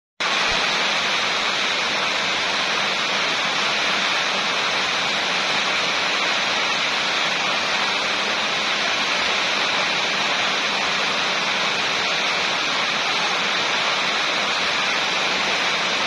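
Rain falling steadily, an even hiss of water with no single drops or other sounds standing out, starting abruptly a moment in.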